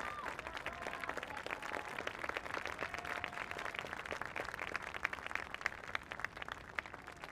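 Crowd applauding, with many separate claps and a few voices calling out faintly; the clapping thins out near the end.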